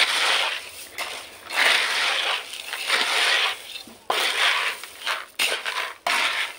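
Roasted chickpeas being stirred and scooped in a plastic basin, by hand and with a metal spoon. The grains make a loud, dry, rattling rustle that comes in repeated surges, with a few sharp clicks.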